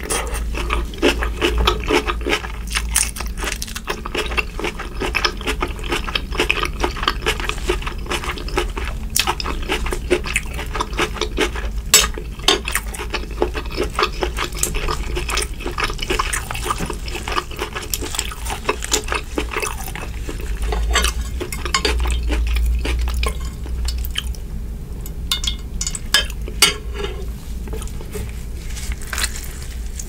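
Close-miked eating sounds: wet, sticky handling and peeling of butter-sauce-coated boiled shrimp by gloved hands over a glass dish, with chewing, made up of dense irregular clicks and crackles.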